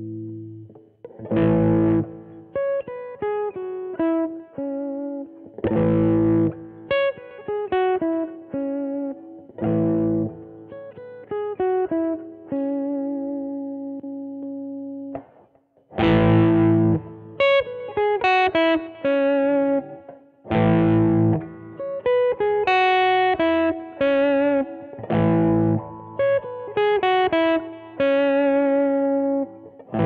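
Squier Vintage Modified Telecaster Thinline electric guitar played through a Peavey combo amp: a full strummed chord every four to five seconds, each followed by quick picked single notes and arpeggios ringing on over it. There is a short lull just before the halfway point.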